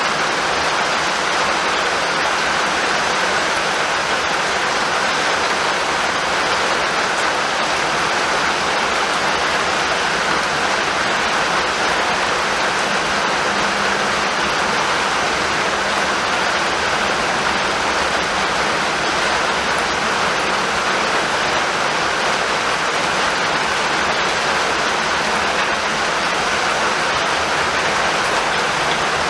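Steady rain falling, an even unbroken hiss that holds the same level throughout, with no thunder.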